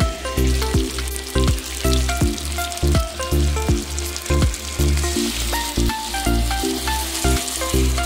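Hilsa pieces frying and sizzling in oil in a metal wok as mustard paste is poured over them, under background music with a steady beat.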